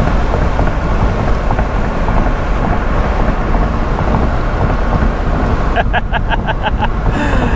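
Wind rushing over an open-top 2005 Chrysler Crossfire roadster driving at speed, with road and engine noise under it and the wind buffeting the microphone. A brief fast-pulsing tone comes in about six seconds in.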